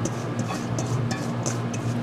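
Kitchen work: several light clinks and taps of utensils over a steady low hum.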